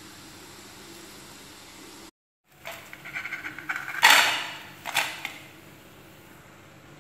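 Hot cooking oil sizzling steadily as cassava balls deep-fry. Then fried balls are tipped from a metal wire strainer onto a plate, clattering, with two sharp knocks about a second apart, the first the loudest.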